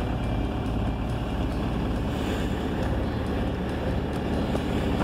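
BMW 320d's 2.0-litre four-cylinder diesel engine idling steadily just after a cold start at about −6.5 °C, with one of its four glow plugs dead, heard from inside the cabin.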